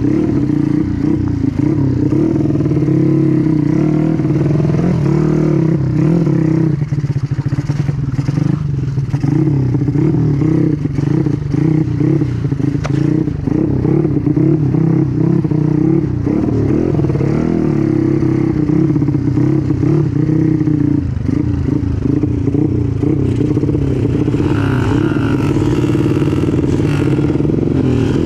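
Small four-stroke single-cylinder motorcycle engine (a Honda Win trail bike fitted with a Yamaha Jupiter engine) running continuously under varying throttle, its revs wavering up and down, with some rattling.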